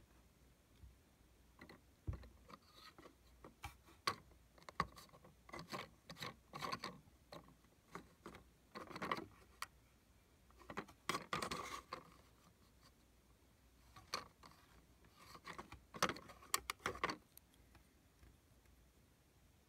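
Small plastic Lego pieces clicking and scraping as a hand handles a custom rocket launcher against a clone trooper minifigure: irregular short clicks and rustles in clusters, starting about two seconds in and stopping a few seconds before the end.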